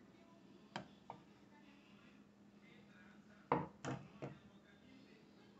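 Light knocks and clinks of kitchenware, a plastic blender jug and a drinking glass being handled on a table. Two small knocks come about a second in, then three louder ones about three and a half seconds in, over a faint steady hum.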